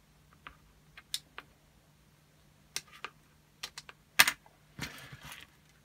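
Scattered light clicks and taps of small 3D-printed plastic parts and hand tools being handled on a workbench, with a sharper knock about four seconds in and a brief rustle after it. A faint steady low hum runs underneath.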